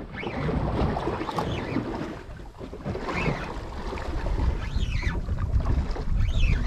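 Wind buffeting the microphone and water washing around a drifting boat, with a few brief high squeaks that rise and fall.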